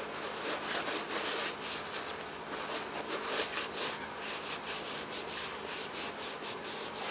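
Paper towel rubbed and twisted around inside the freshly honed cylinder bore of a Briggs & Stratton 5S engine block, a continuous scrubbing rustle of many quick strokes, wiping out the honing oil.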